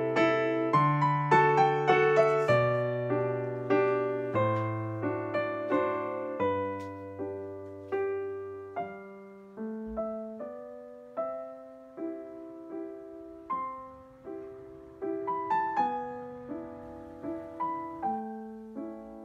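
Background piano music: a slow melody of struck notes, each one fading, over bass notes that drop out about halfway through.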